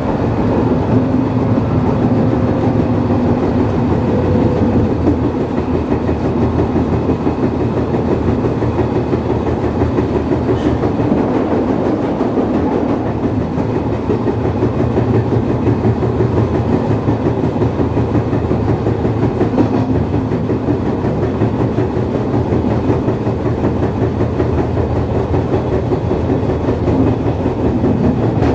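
JR East 113 series electric train running at speed, heard from aboard motor car MoHa 113-1103: a steady rumble of wheels on rail and traction motors, with rail-joint clickety-clack and the knocking of a flat spot on a wheel.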